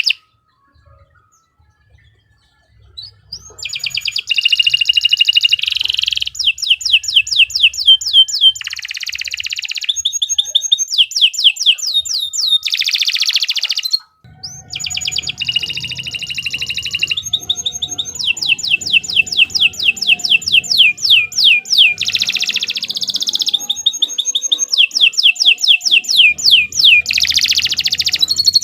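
Domestic canary singing a long, loud song: runs of rapid, quick downward-sweeping notes alternate with buzzing rolls. The song starts after about three seconds of silence and breaks off very briefly midway.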